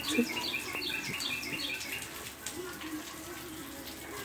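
A bird singing a quick run of repeated high chirps for about two seconds, over steady rain.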